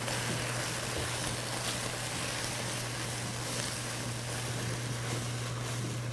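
Bok choy and garlic simmering and sizzling in a little liquid in a hot wok as the water reduces, with a few faint spatula scrapes as it is stirred. A steady low hum runs underneath.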